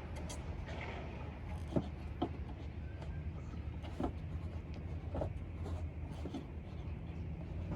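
Scattered light clicks and knocks, about five, from hands and a tool working at a car's side marker light housing to free it, over a steady low hum.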